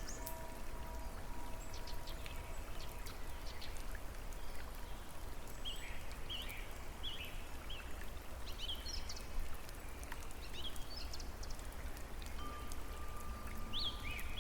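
A steady hiss of falling or running water, with birds chirping in short, scattered calls throughout. A few long, steady tones are held in the background.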